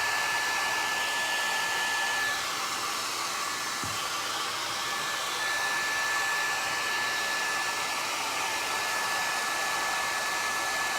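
Hair dryer running steadily with a high whine, blowing on wet paint to dry it. The sound dips a little for a few seconds about two seconds in, then returns to full strength.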